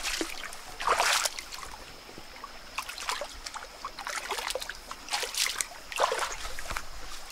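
Water splashing and sloshing in a shallow stream as a person wades and works in it, in irregular bursts several times.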